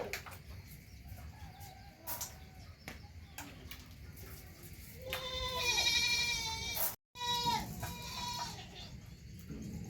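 Goat bleating: one long, wavering bleat about five seconds in, then a shorter falling bleat just after seven seconds, with a few sharp knocks earlier.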